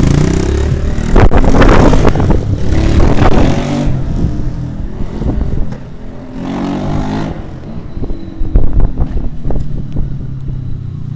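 Kayo T2 pit bike's single-cylinder engine revving in several loud surges, falling back between them.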